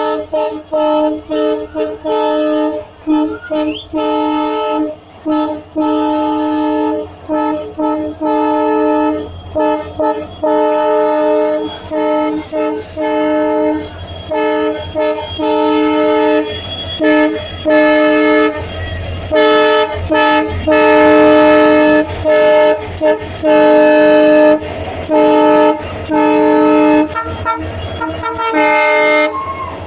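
Locomotive horn sounded over and over by the loco pilot: a string of short toots in the first half, then longer blasts of one to two seconds each. The honking is a warning to a crowd to clear away from the train.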